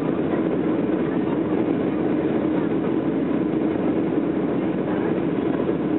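Steady, deep rushing noise of a Boeing 737-400's CFM56 turbofan engines and the airflow over the airframe, heard from inside the passenger cabin during the climb after takeoff.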